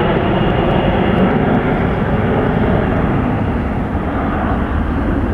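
NASA Boeing 747 Shuttle Carrier Aircraft passing low overhead: loud, steady noise of its four jet engines, easing a little near the end.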